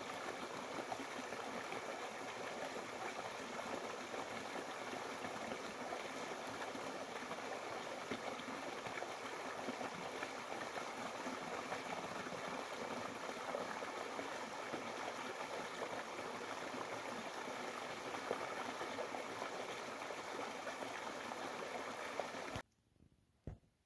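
Small woodland brook running over rocks in little cascades: a steady rush of water that cuts off suddenly near the end, followed by one short knock.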